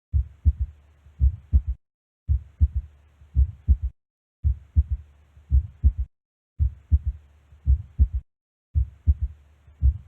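Heart sounds heard through a stethoscope: low, sharp lub-dub beats with a faint hiss between them. A short recording of a few beats is replayed over and over, about every two seconds, with a brief silent gap between repeats.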